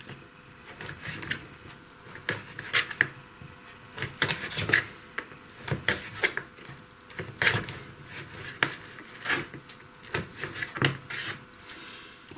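Kitchen knife cutting figs into slices on a cutting board: irregular sharp knocks of the blade meeting the board, about one or two a second.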